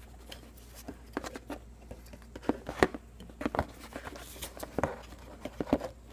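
Irregular clicks, taps and rustles from hands working on a workbench: a paper tissue wiping off excess glue and a plastic spring clamp being gripped and lifted off. The sharpest click comes a little under 3 seconds in.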